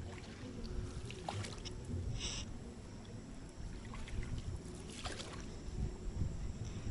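Small boat moving slowly through mangrove-swamp water: a steady low water rumble with scattered light splashes and knocks, and a couple of brief hissing splashes.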